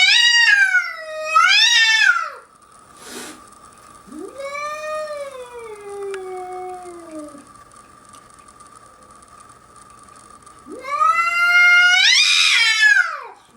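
A cat caterwauling in long, drawn-out yowls. Two wavering yowls come at the start, then a long falling one, and a loud rising-and-falling yowl near the end.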